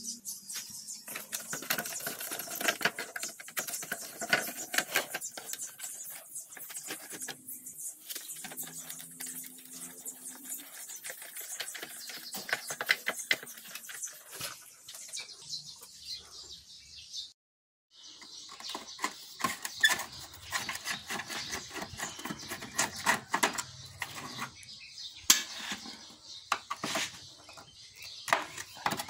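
Hand screwdriver working screws out of a Yamaha Mio scooter's body panels: a busy run of scratchy clicks and metal scraping as the tip turns and bites in the screw heads, breaking off briefly partway through. Near the end the tip grinds in a rusted screw whose head is rounded off, so the screwdriver just spins.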